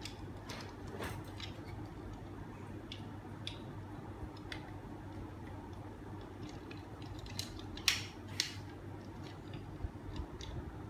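Scattered small clicks and taps of a plastic pendulum-clock electronics unit and its wires being handled and connected, the sharpest two about eight seconds in, over a steady low hum.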